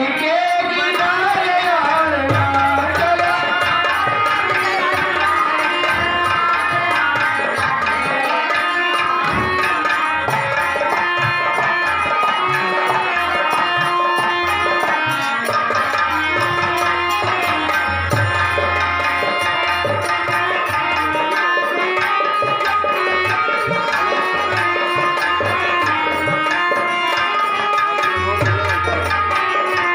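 Live music with tabla drumming under a melody of held notes, playing steadily throughout.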